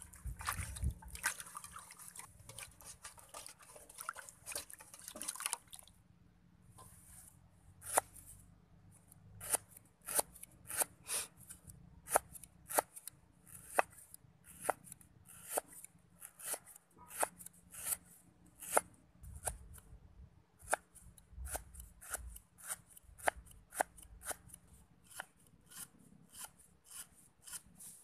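Hands swishing long beans through water in a metal bowl for the first few seconds. Then a knife slicing a lemongrass stalk thinly on a round wooden chopping board, a sharp tap on the board with each stroke, about two a second.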